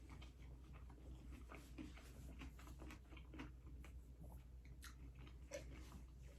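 Faint chewing of food, soft irregular mouth clicks and small crunches.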